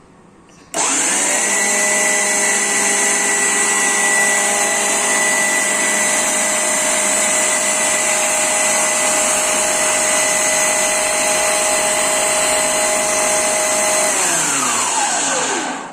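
Preethi Zodiac mixer grinder's motor switched on, kneading wheat flour, salt and water into dough in its jar: a steady, loud whine with a hum that runs about thirteen seconds. It is then switched off and spins down, its pitch falling away.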